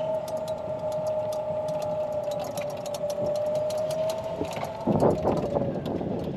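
Golf cart driving across grass: its motor gives a steady whine, with small rattling clicks. About five seconds in there is a brief rush of noise, and the whine fades soon after.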